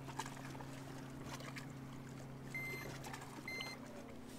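Handheld digital fish scale giving two short, high beeps about a second apart while weighing a largemouth bass hanging from its clip. A steady low hum and a few small handling clicks run underneath.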